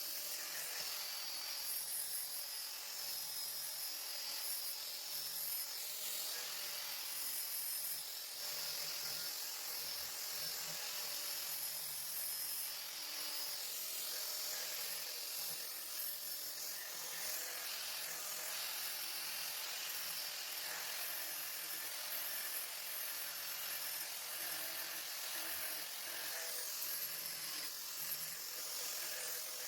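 Angle grinder running steadily against the steel adze head, a continuous high-pitched grinding hiss with a steady motor whine underneath.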